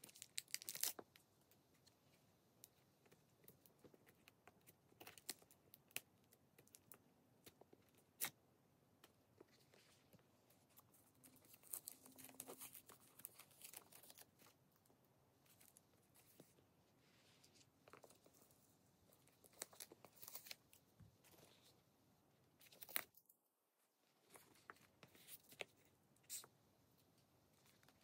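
Packing material being pulled off a new leather handbag: plastic wrap and tissue paper crinkling and tearing in short, scattered rustles, mixed with sharp little clicks and taps.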